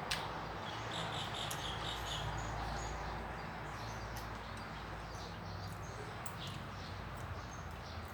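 Steady outdoor background noise with a low hum. About a second in comes a short run of quick, high chirps, and a few faint clicks are scattered through.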